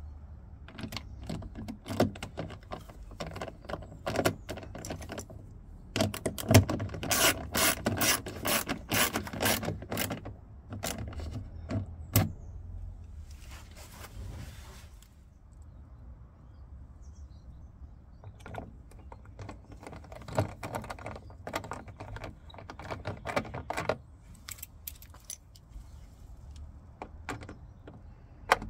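Hand-tool work on a car door: runs of rapid mechanical clicking and clatter, with a short hissing scrape about halfway through.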